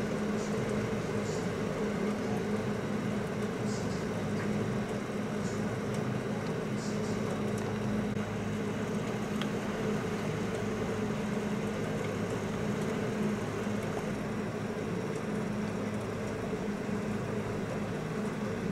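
Gusty wind and rain from a hurricane's outer bands: a steady rushing noise with a low, even hum beneath it.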